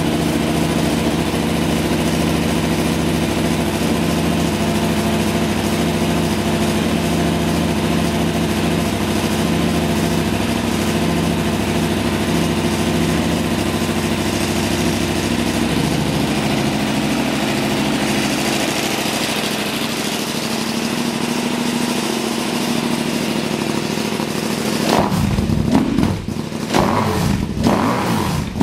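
KTM Super Duke's V-twin idling steadily through a Leo Vince slip-on exhaust with its baffle inserts fitted, the idle note shifting lower about halfway through. Near the end the throttle is blipped in a few quick revs that rise and fall.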